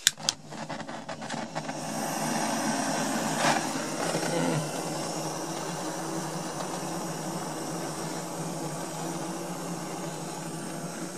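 A handheld gas torch's flame hissing steadily as it lights paper and wood kindling in a potbelly wood stove, with a click just after the start.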